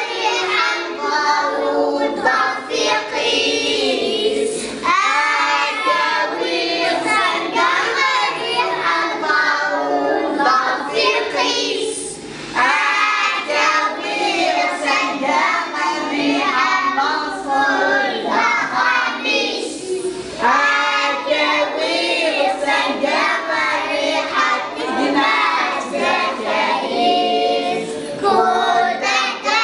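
A group of young children singing together, with short breaks about twelve and twenty seconds in.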